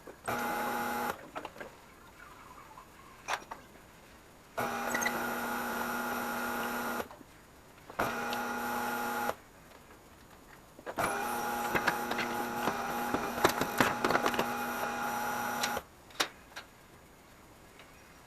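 Tire changer's electric turntable motor running in four on-off bursts, the longest about five seconds, with clicks and knocks from the mounting tool and tire bead between and during them, as tires are mounted onto wheels.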